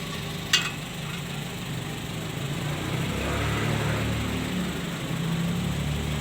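Engine running with a turbo whistle attachment fitted on its exhaust, a single sharp click about half a second in, then the engine note rising slightly as it is revved a little.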